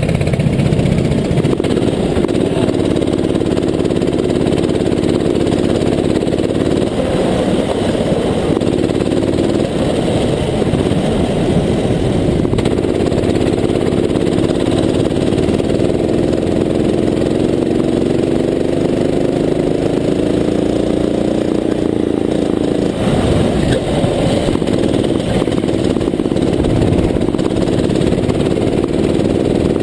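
Rental go-kart engine heard from on board, revving up and down as the kart laps the track, with a brief drop in revs a little over twenty seconds in.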